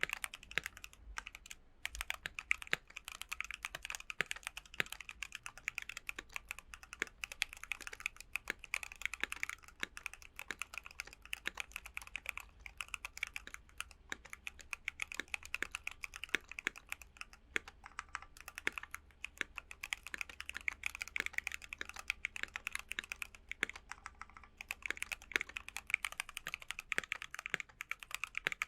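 Continuous fast typing on a Keychron Q1 aluminium custom mechanical keyboard with Gateron Phantom Red linear switches and PBT keycaps: a rapid stream of keystroke clacks, with brief pauses about a second and a half in and near the end.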